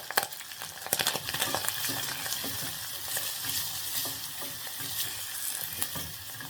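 Meat frying in a pot with browned onions, ginger and garlic, sizzling steadily. There are a few sharp knocks in the first second.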